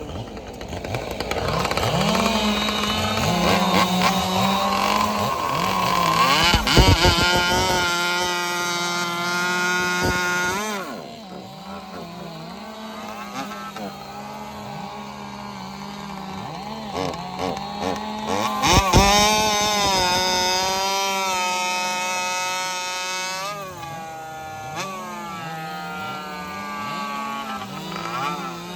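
Ported Jonsered 2165 two-stroke chainsaw running at high revs and cutting wood. Its pitch dips and recovers over and over as the chain loads in the cut and frees again.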